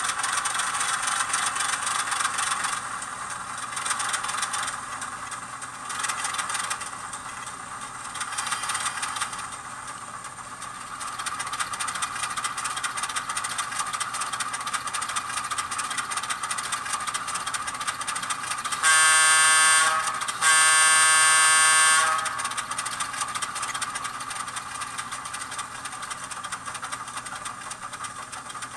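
Sound decoder of an N-scale Atlas VO1000 diesel switcher model, an ESU LokSound, playing through a tiny 8 x 12 mm speaker: simulated diesel engine running, rising and falling in level over the first ten seconds. About 19 s in come two horn blasts, each a second or so long, the second slightly longer.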